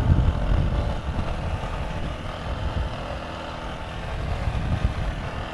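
Motorcycle on the move, its engine mixed with a low, uneven wind rumble on the microphone. It grows quieter after the first second.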